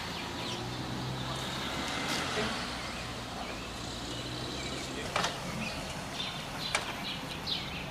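Dodge pickup truck's engine idling steadily after a pull, with a few short clicks or knocks over the last few seconds.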